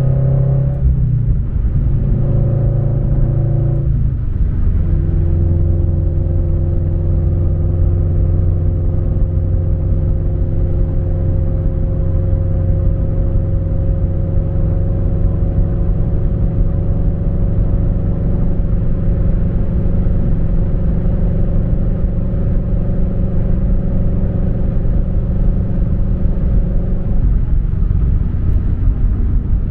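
Subaru BRZ's flat-four engine through a MAperformance 3-inch catback exhaust, heard from inside the cabin while cruising: a steady low rumble. The engine note changes about one second and four seconds in, then holds steady.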